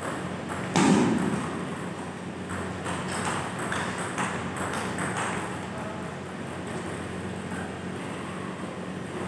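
Table tennis rally: the ball clicking off the paddles and bouncing on the table in quick succession, with a louder thump about a second in. A steady low hum runs underneath.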